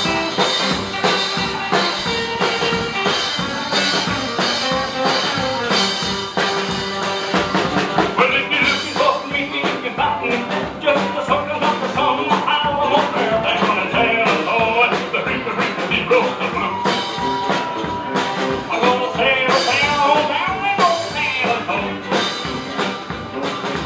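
Live rockabilly band playing, with electric and acoustic guitars over a steady beat.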